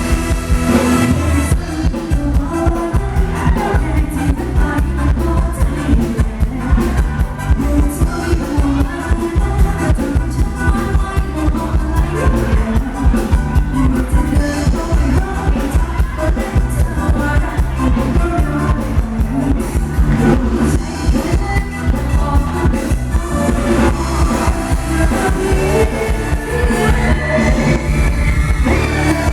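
Thai ramwong dance music played by a live band, with a steady driving beat and a voice singing over it.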